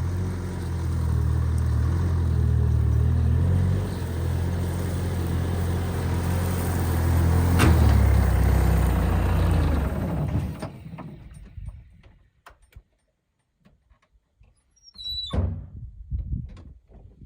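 A vehicle engine runs steadily, then is shut off about ten and a half seconds in. A few scattered clicks follow, and a short squeak comes near the end.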